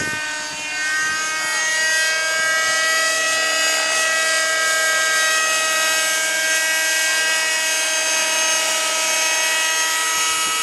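Raptor radio-controlled model helicopter flying low, its engine and rotor head making a steady high whine of many tones. The pitch rises over the first couple of seconds, then holds.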